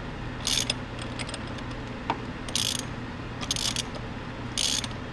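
Socket ratchet wrench clicking in four short bursts about a second apart as it is swung back between strokes. It is turning the installer tool's nut to press a harmonic balancer (crank pulley) onto an LS engine's crankshaft.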